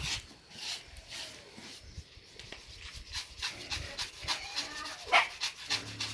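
A dog whimpering a few times, the loudest near the end, over repeated short scraping and knocking sounds.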